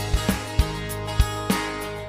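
Background music: held instrumental tones over a regular beat.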